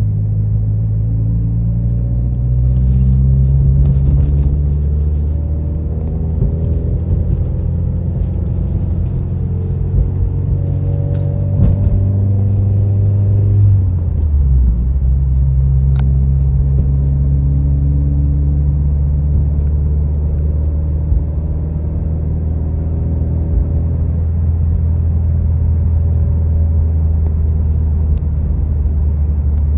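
Subaru WRX's turbocharged flat-four engine heard from the driver's seat while cruising, its note climbing and easing with the throttle. About 14 seconds in the pitch drops sharply, as at a gear change or lift-off, then settles into a steady drone.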